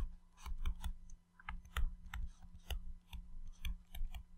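Plastic stylus tip tapping and scratching on a tablet's glass touchscreen during handwriting: an irregular run of light clicks, several a second.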